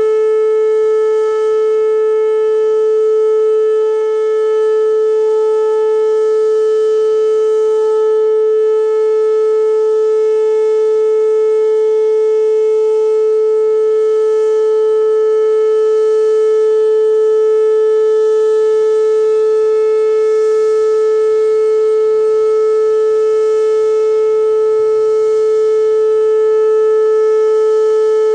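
Whelen WPS-2809 electronic outdoor warning siren sounding a loud, steady tone on one unchanging pitch with overtones, during a routine siren test.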